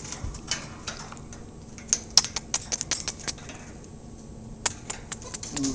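Peach-faced lovebird making a rapid, irregular series of small, sharp clicks and smacks, in quick clusters with short pauses between.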